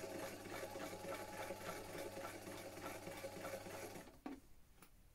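Vintage electric sewing machine running steadily, its motor humming under a rapid stitching rhythm. It stops about four seconds in, followed by a click and a few light handling knocks.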